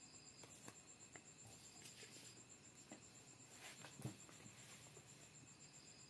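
Near silence: room tone with a faint, steady, high pulsing tone, and a soft rustle of a paper sheet being handled about four seconds in.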